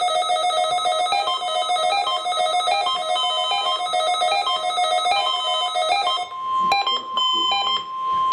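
NOAA Weather Radio alert signals during the required weekly test. Fast repeating electronic beeps jump between pitches, and about six seconds in they give way to a steady single tone, the 1050 Hz warning alarm tone, broken by a few short clicks.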